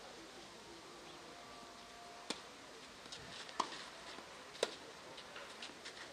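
Tennis ball on a clay court, struck by rackets and bouncing: three sharp pops about a second apart in the second half, over faint outdoor background.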